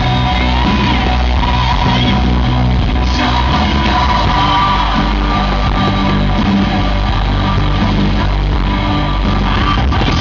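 Loud rock music with singing and a steady bass.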